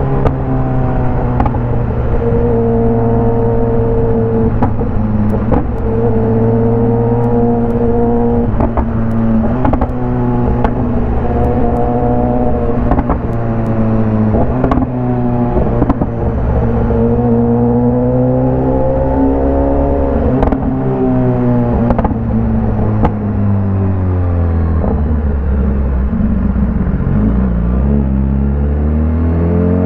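BMW S1000RR's inline-four engine running loud through its exhaust while under way. The engine pitch holds fairly steady with small rises and dips, falls away about three-quarters of the way through, then climbs again near the end.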